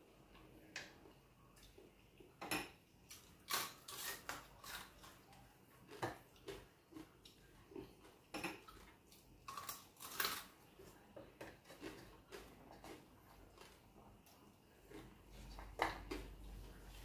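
Irregular light clinks and clicks of a metal spoon against a small ceramic sauce bowl and a plate.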